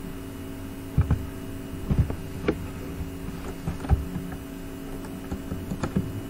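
Steady electrical hum in the recording, with several soft knocks and clicks spread through it.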